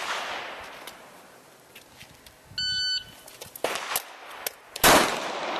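A shot timer gives one short electronic beep, and about two seconds later a handgun fires a single shot, the loudest sound, ringing out afterwards. This is the start signal and the shooter's draw-and-fire on a timed one-shot drill.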